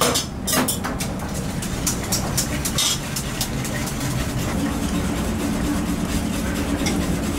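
Steady low rumble of a commercial kitchen's gas burners and ventilation, with a metal ladle clinking and scraping in an aluminium pan as miso ramen broth is stirred; the clinks are most frequent in the first three seconds.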